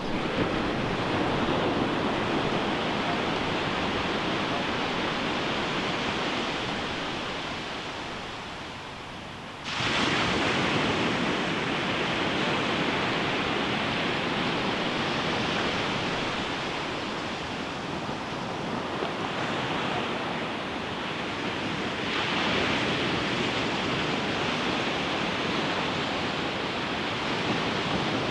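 Ocean surf breaking and washing up on a beach: a continuous rush of waves whose loudness swells and eases. About ten seconds in, the sound jumps suddenly louder as a wave breaks.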